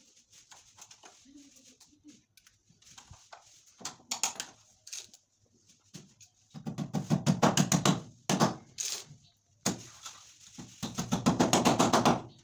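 Claw hammer tapping small nails into the edge of a PVC wall panel: two runs of rapid, light strikes, each lasting under two seconds, with a few single taps before and between them.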